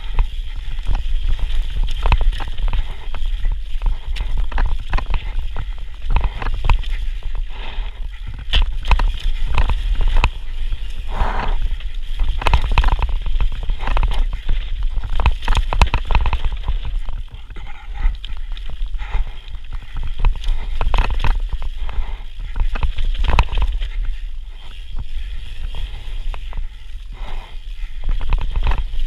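Santa Cruz Megatower full-suspension mountain bike descending a dry dirt trail: tyres running over dirt and stones with many irregular sharp knocks and rattles from the bike, over a steady low rumble of wind on the microphone.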